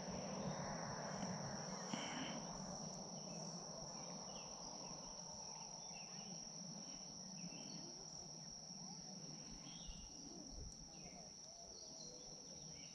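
Faint, steady insect chorus: one unbroken high-pitched tone that holds throughout and grows slightly fainter toward the end.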